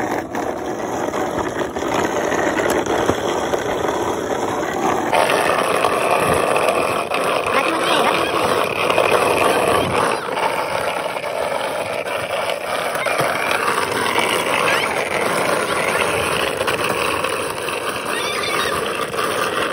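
Ball-bearing wheels of a rolimã cart rolling down an asphalt road: a steady, gritty rolling rumble.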